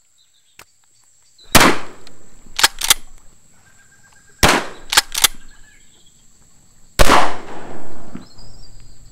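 Shotgun fired three times, a few seconds apart, each blast trailing off over about a second. The first two blasts are each followed by two quick, sharper cracks.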